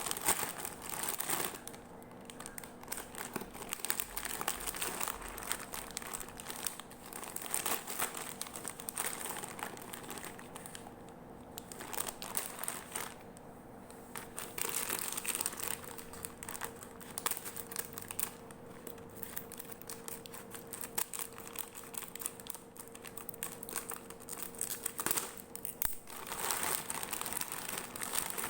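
Close-up crinkling and crackling from crunchy cookies being handled, a dense run of small irregular crackles that swells and eases in waves, with a faint steady hum underneath.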